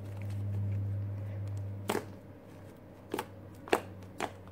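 Fluffy shaving-foam slime squished and poked with fingertips. Trapped air pops out in four sharp little clicks over the second half. A low steady hum underneath is strongest for the first two seconds.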